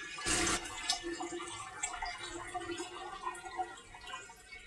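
Maple sap poured from a plastic jug through cheesecloth into a pot: a steady splashing trickle with one louder splash shortly after the start, easing off near the end.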